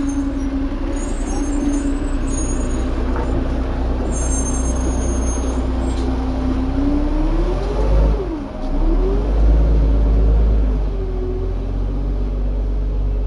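Garbage truck's Cummins L10 diesel engine running, its speed climbing, dropping sharply about eight and a half seconds in, then climbing again and levelling off as the truck moves. The engine gets loudest in the middle.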